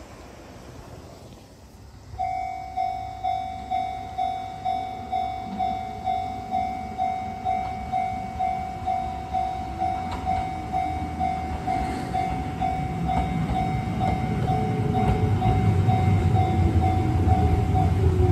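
A railway level-crossing warning bell starts abruptly about two seconds in and rings an even, repeating electronic tone a little under twice a second at a steady pitch. From about fourteen seconds an Izuhakone Railway Daiyuzan Line train's rumble grows louder, with a falling motor whine as it comes through.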